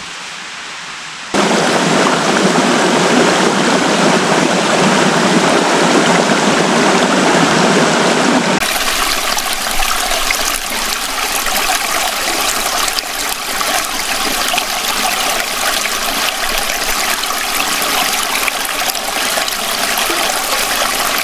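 A mountain stream flowing: a steady rush of water heard in separate cut shots. It jumps louder about a second in, and about eight seconds in it changes to a brighter, hissier splashing.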